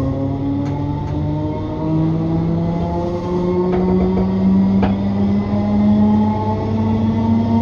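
Class 321 electric multiple unit accelerating, heard from inside the carriage: the whine of its traction motors and gearing rises slowly and steadily in pitch. A few sharp clicks from the running gear sound over it.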